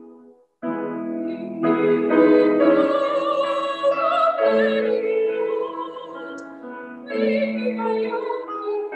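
A solo female voice singing a hymn in a trained, classical style with vibrato, accompanied by piano. The music stops briefly about half a second in, then resumes.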